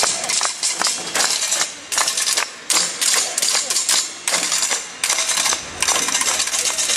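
Rapid clattering and knocking of hard, metallic objects, many sharp hits a second with brief lulls between runs.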